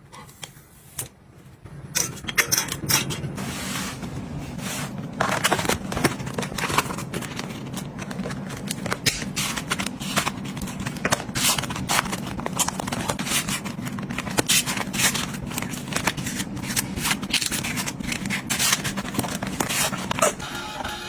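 Small hard objects being handled: a busy run of clicks, taps and scrapes over a steady low hum, starting about two seconds in.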